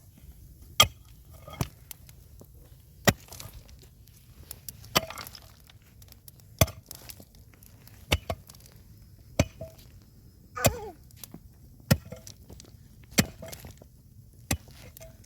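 Wood being struck hard with a hand tool in a steady series of sharp blows, about one every second and a half.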